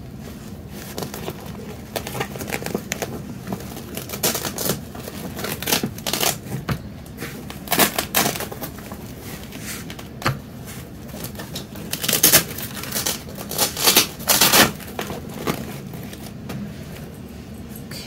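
Fabric bottom cover of an Urban Worm Bag v2 being handled and fitted onto the bag: the fabric rustles, with irregular sharp clicks and snaps from its plastic buckles and tabs, a few of them louder than the rest.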